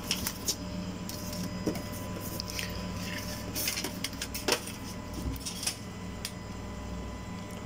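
ATM's receipt printer pushing out the transaction slip after a cash deposit: a steady machine hum, scattered sharp clicks and a brief whir about halfway through.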